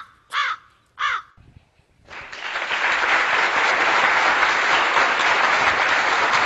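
A crow caws three times in quick succession. About two seconds in, a steady wash of applause starts abruptly and holds.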